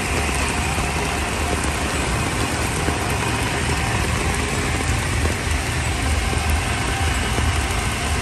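Heavy rain pouring steadily on a city street, with a steady low rumble of engines in the traffic underneath.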